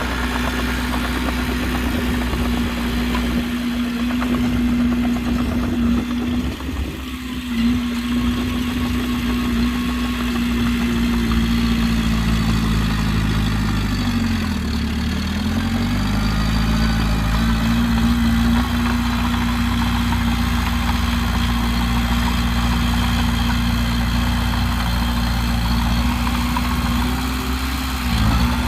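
Diesel engine of heavy earthmoving equipment running steadily; about halfway through its engine speed drops and then climbs back up, with a smaller dip near the end.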